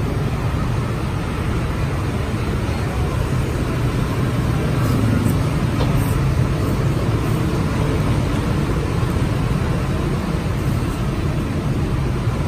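Steady street traffic noise, a low even rumble of passing vehicles, with a few faint ticks about five to six seconds in.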